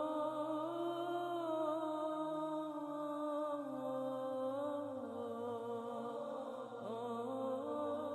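Slow, tearful wordless vocal chant held in long gliding notes over a low steady drone: a vocal-only background track meant to move listeners to tears.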